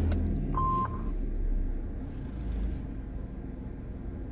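A Hyundai car's engine, just started, running and settling to a steady idle. A short electronic beep sounds about half a second in.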